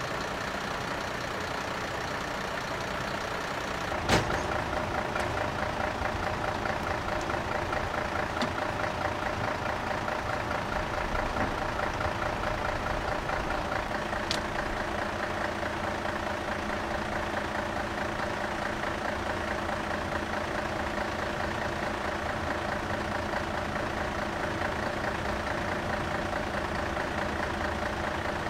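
Heavy truck engine idling steadily. There is a sharp knock about four seconds in, after which a steady tone joins the engine sound.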